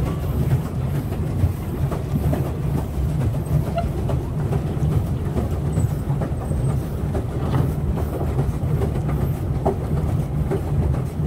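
Pedal boat's pedal drive and paddle wheel running as it is pedalled, a steady low rumble with scattered faint clicks.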